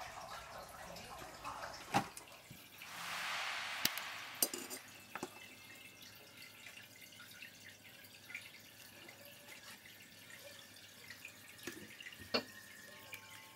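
Handling sounds of potting a rooted serissa cutting into soil in a plastic pot set in a foil tray: scattered light clicks and taps, with a brief hiss that swells and fades about three seconds in.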